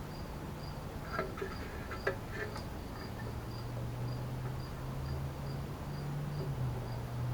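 Cricket chirping steadily, about two short high chirps a second, over a low hum, with a few faint clicks.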